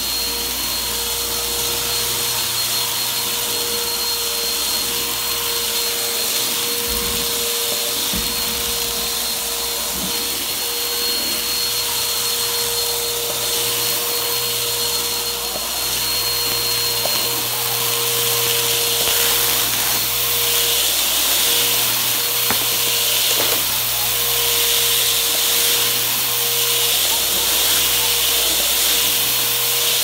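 Bissell PowerForce Helix bagless upright vacuum cleaner running steadily as it is pushed back and forth over carpet: a constant motor whine under a hiss of rushing air. It gets a little louder in the second half.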